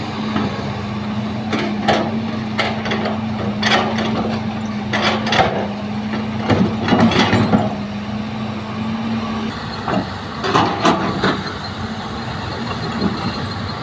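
Hitachi excavator loading soil into a dump truck: a diesel engine running steadily, with repeated clanks and thuds from the bucket and falling soil, heaviest about seven seconds in. The steady engine tone changes about nine and a half seconds in.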